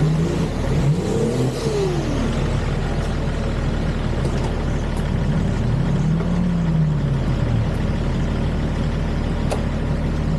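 Off-road vehicle's engine revving up and down in slow swells under load while crawling, with a sharp click about nine seconds in.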